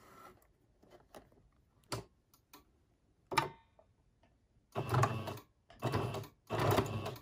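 Domestic electric sewing machine stitching in three short runs of about a second each near the end, starting and stopping between them, after a few scattered light clicks as the fabric is set in place.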